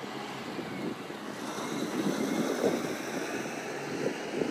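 Road train with refrigerated trailers rolling past close by on a dirt road: a steady engine and tyre rumble that grows louder about a second and a half in, with wind on the microphone.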